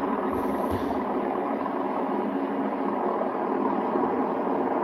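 Steady rushing hum of a taxiing Boeing 777X's twin GE9X turbofans, heard through a TV's speakers.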